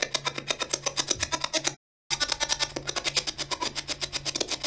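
Defective radio crackling and buzzing: a steady stream of clicks, about eight a second, over a low hum. It cuts out completely for a moment about two seconds in.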